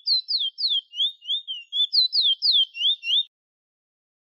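Chestnut-bellied seed finch (the 'bullfinch' or towa-towa) singing: a quick run of clear, high whistled notes, about four a second, some slurring up and some slurring down. The song stops about three seconds in.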